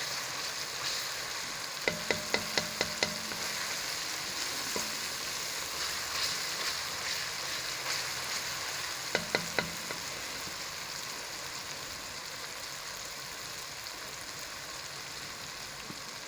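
Onion and tomato masala sizzling steadily in hot oil in a karahi as it is stirred with a spoon. The spoon knocks against the metal pan in a quick run of about six taps about two seconds in, and three more about nine seconds in.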